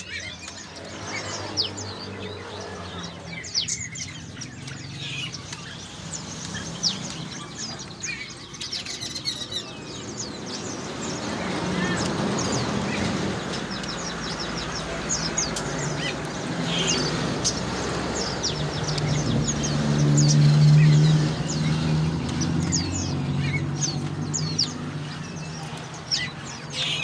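Many caged songbirds chirping over one another in rapid, high, falling chirps, along with a lower pitched hum that grows louder through the middle.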